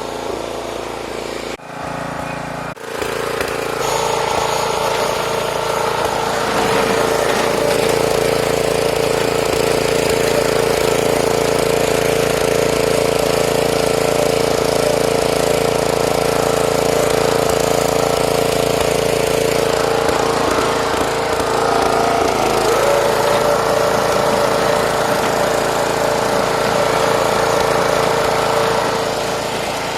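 Snapper riding lawn mower's engine running steadily while being driven, its pitch dipping and coming back up about two-thirds of the way through.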